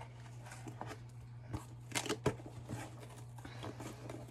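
Scissors snipping through packing tape on a cardboard box, with rustling and tearing of cardboard and packaging as it is opened. A few sharp clicks come about two seconds in.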